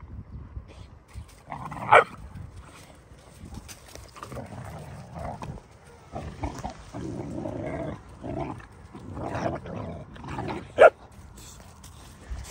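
Two three-month-old Dogo Argentino puppies play-fighting to settle dominance: low growling in stretches, with two short, sharp barks, one about two seconds in and one near the end.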